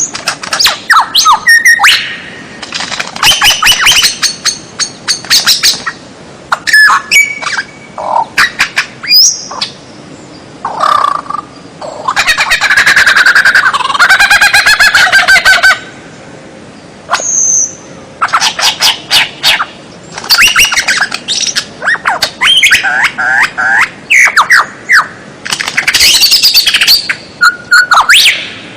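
Songbird training recording of loud, varied bird song: runs of sharp chips and sliding whistles, with a long rapid trill in the middle.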